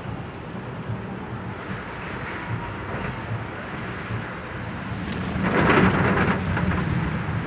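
Heavy rain on a car and the car's steady low rumble, heard from inside the cabin while driving through a flooded street. A louder rush swells up about five and a half seconds in and fades after about a second.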